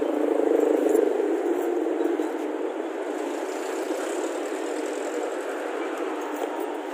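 Road traffic noise from vehicles passing on a city street, loudest about a second in and then a steady rush.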